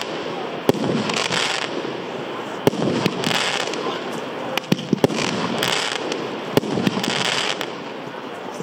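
Gaoo 'Amazing Night' F2 fireworks battery firing four shots: each a sharp launch pop, followed about half a second later by a short crackling burst as the stars break.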